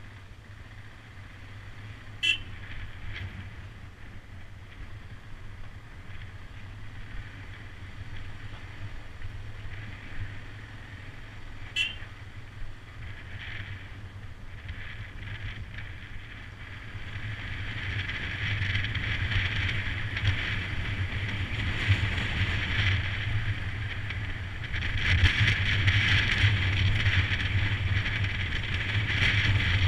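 Royal Enfield Himalayan motorcycle's single-cylinder engine running at low road speed on gravel, with a rushing tyre and wind noise that grows louder after about halfway. Two sharp clicks, about two and twelve seconds in.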